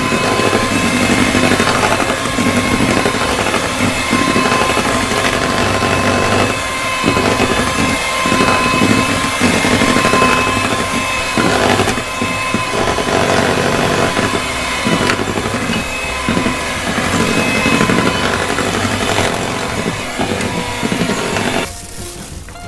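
Philips electric hand mixer running, its beaters churning through thick cake batter with a steady motor whine. It cuts off near the end.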